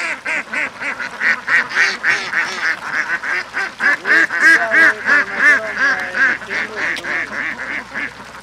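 A flock of birds calling without pause: many short, harsh calls in quick succession, about three to four a second, loudest around the middle.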